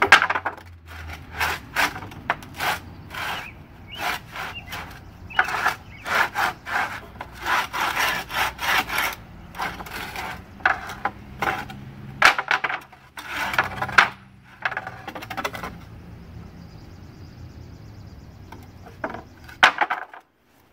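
Sandpaper rubbed by hand over a painted, weathered fence-board sign to scuff and distress the finish: quick, scratchy back-and-forth strokes in runs, easing off after about sixteen seconds, with a few last strokes near the end.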